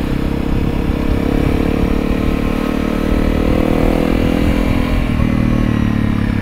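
Honda CRF300L's single-cylinder engine with a Yoshimura RS-4 full exhaust system, running at cruising speed under the rider. The engine whine is heard over a deeper exhaust note from the back, and the pitch rises a little a few seconds in.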